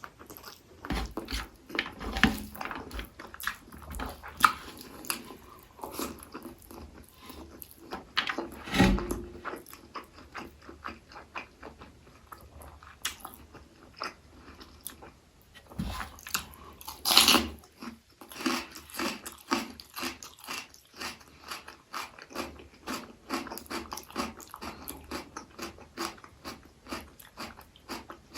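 Close-miked eating sounds: chewing and mouth smacks with small wet clicks, and now and then a louder crunch or slurp, from someone eating egg curry with rice.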